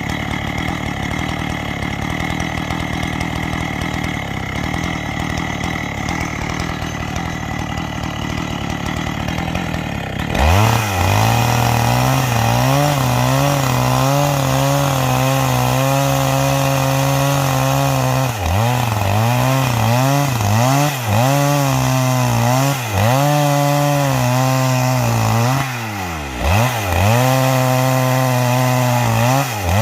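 Two-stroke chainsaw with a square chisel chain ripping lengthwise along a garapa log. For about ten seconds the sound is rough and noisy from the chain in the wood. It then changes abruptly to a clearer, steady engine note that dips in pitch and recovers several times.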